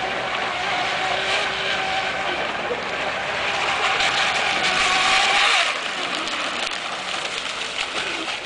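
RC hydroplane with an 8XL brushless motor on a 4S LiPo, running at speed: a steady motor-and-propeller whine under a loud hiss of spray. The sound builds to its loudest about five seconds in, then drops suddenly as the boat comes off the throttle and slows.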